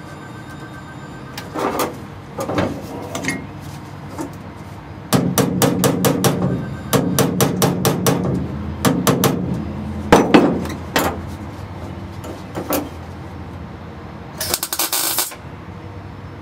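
Hammer tapping a sheet-steel floor pan panel into place: a few single taps, then quick runs of light blows. Near the end comes a short burst of welding on the seam.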